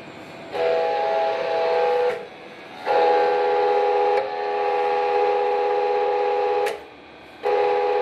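Hydraulic power unit's pump running under pressure with a steady whine of several pitches, switched on and off in bursts. It starts about half a second in, stops after about two seconds, runs again for nearly four seconds from about three seconds in, then cuts off and starts again near the end.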